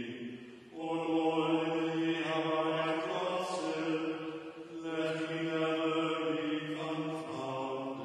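Liturgical chanting of a Mattins canticle, the words sung on long held reciting notes with a short break about a second in and another near the five-second mark.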